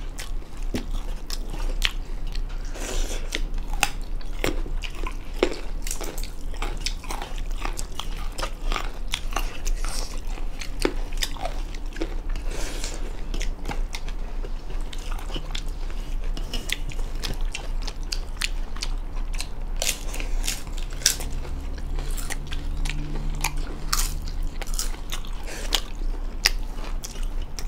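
Close-up eating sounds of two people chewing and biting rice and chicken eaten by hand, with many small sharp mouth clicks and smacks and some crunching.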